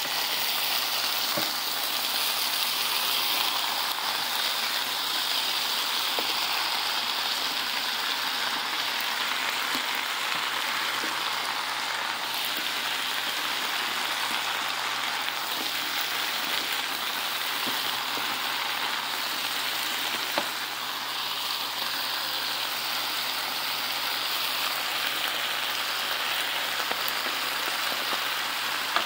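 Cabbage, green beans and Brussels sprouts sizzling steadily as they sauté in a pan, with a few light clicks of a silicone spatula stirring them.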